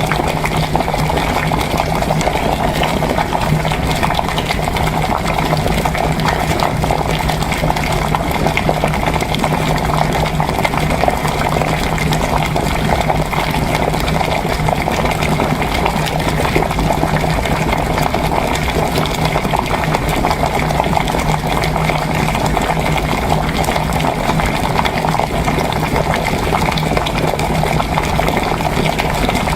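Water boiling steadily, with continuous bubbling, mixed with typing on an HHKB keyboard's Topre electrostatic-capacitive switches; an even, unbroken wash of fine clicks over a low hum.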